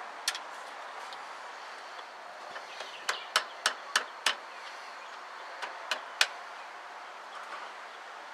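Sharp clicks of hand tools working on metal: a run of five evenly spaced about three a second near the middle and a few single clicks, over a steady background hiss.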